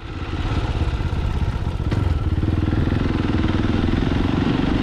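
Fantic Caballero 500's single-cylinder engine running steadily while the motorcycle rides along, swelling up from quiet in the first moment.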